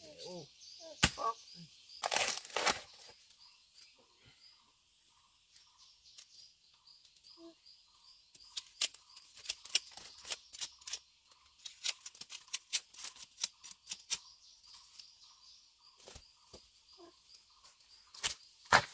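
Irregular sharp snaps and crackles, with a couple of louder rustling tears near the start. Behind them a faint chirp repeats about twice a second.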